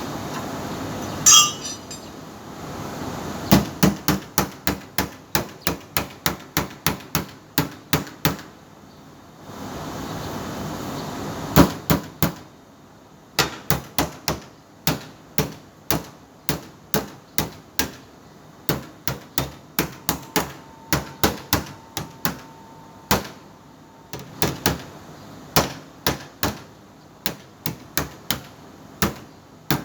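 Hammer tapping on sheet metal in quick runs of blows, about three a second, with short pauses between runs, typical of tinsmith panel beating. One louder, ringing hit lands about a second in.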